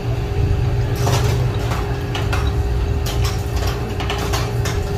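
A steady low mechanical hum with a steady tone over it, with scattered light clicks and knocks.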